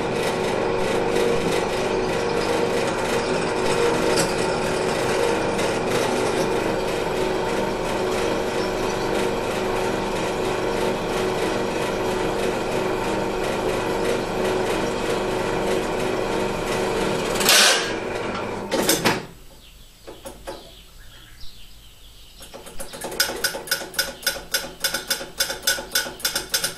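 Benchtop drill press motor running steadily while drilling a small steel screw held in a machine vise. About seventeen seconds in come two loud knocks a second or so apart and the motor sound stops, followed near the end by a quick run of light ticks.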